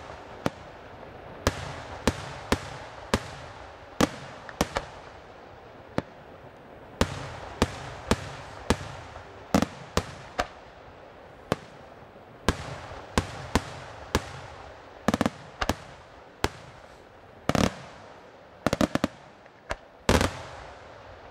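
Aerial firework shells bursting in an irregular series of sharp bangs, roughly one a second, with a steady haze of noise between them. A quick cluster of bangs comes near the end.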